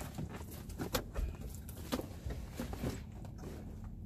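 Scattered light clicks and taps of a hooked fish being handled and unhooked by hand, over a steady low rumble.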